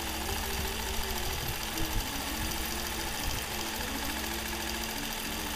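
Nolting Pro longarm quilting machine stitching under IntelliQuilter computer guidance: a steady running hum of the motors and needle, with a few light knocks about one and two seconds in.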